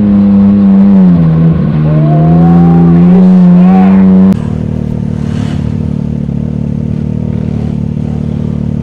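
Can-Am Maverick X3 Turbo RR's turbocharged three-cylinder engine running hard at high revs, dipping briefly about a second and a half in, then climbing back. A little after four seconds it cuts abruptly to a quieter, steady engine drone.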